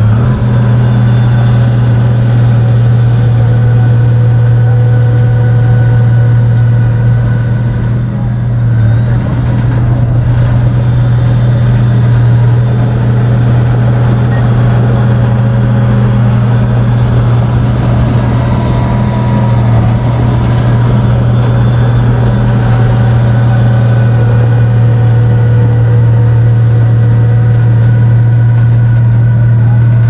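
Komatsu bulldozer's diesel engine running steadily with a deep, continuous drone, dipping briefly about eight seconds in.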